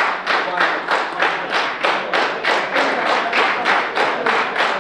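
Steady rhythmic handclapping in unison, about five claps a second.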